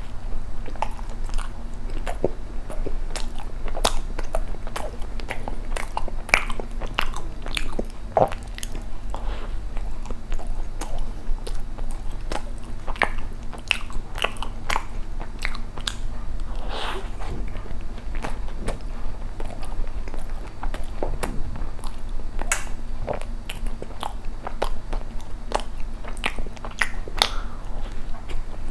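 Close-miked biting and chewing of soft, cream-filled matcha bread with red bean paste: irregular wet mouth clicks and smacks throughout.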